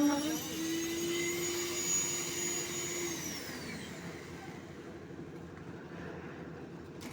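Concrete poker vibrator's motor running with a steady whine, then switched off about three seconds in and winding down.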